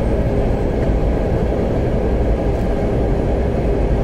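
Semi-truck driving at highway speed, heard from inside the cab: a steady low engine drone mixed with road and wind noise.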